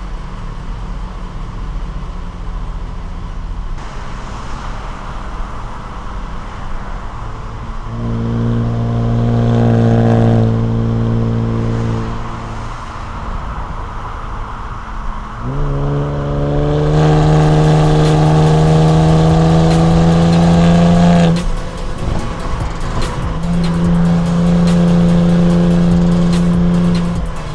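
Exhaust of a Kia Stinger GT2's twin-turbo 3.3-litre V6 through an MBRP cat-back exhaust, heard from outside the car at highway speed: a low cruising drone, then the note swells and holds for a few seconds about eight seconds in. Around fifteen seconds in the revs sweep up and the engine pulls under load, its note climbing slowly before cutting off sharply. A shorter steady pull comes near the end.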